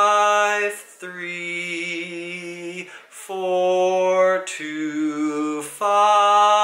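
A man singing unaccompanied the bass line of a tuning progression (1-5-3-4-2-5-5-1): about five long held notes in a row, the pitch stepping from one note to the next.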